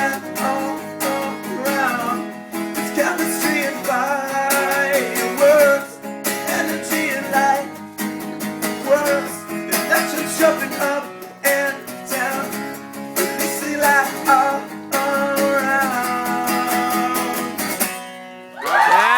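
Acoustic guitar strumming chords with a sung melody over it, from a live performance of a pop-song parody.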